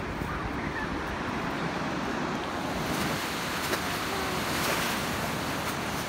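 Small waves washing onto the shore in a steady hiss, with wind rumbling on the microphone.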